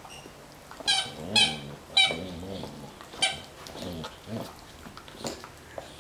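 Squeaky vinyl elephant dog toy squeaking as a Border Collie bites down on it: four sharp, high squeaks close together, then fainter squeaks and chewing.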